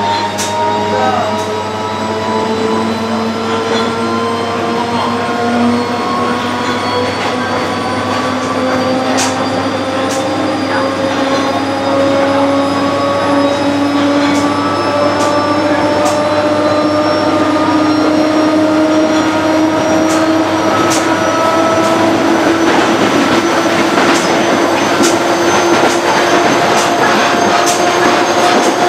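Interior sound of a Z 6300 electric multiple unit under way: a whine in several tones rising slowly and steadily in pitch as the train gathers speed, over the steady rumble of the running car, with sharp clicks now and then.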